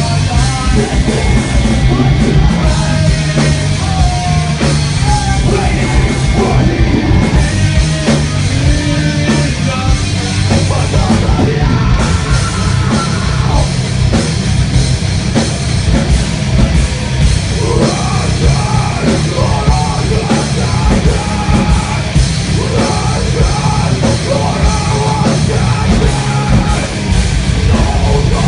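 Metal band playing live: electric guitars and a drum kit, with a vocalist yelling into the microphone.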